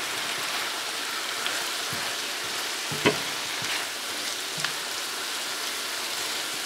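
Bora (long beans), sliced potato and tomato sizzling steadily in a frying pan as a spatula turns them, with a few short scrapes and taps of the spatula on the pan, the sharpest about three seconds in.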